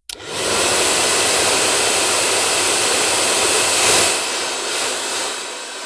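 Hair dryer switched on with a click, its fan spinning up within half a second into a steady rushing blow of air. About four seconds in it briefly grows louder and brighter, then eases a little.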